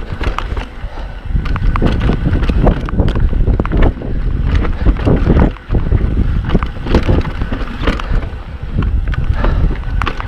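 Mountain bike riding fast down a dirt trail: tyres rumbling over the ground, with frequent rattles and knocks from the bike over rough terrain and wind buffeting the GoPro's microphone. The noise eases briefly just past halfway.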